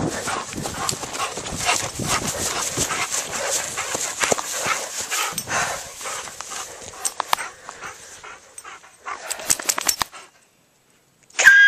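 Close rustling and crackling of dry grass, dense with small clicks, which fades after about six seconds and comes back in a short patch around ten seconds in. A short high call falling in pitch follows at the very end.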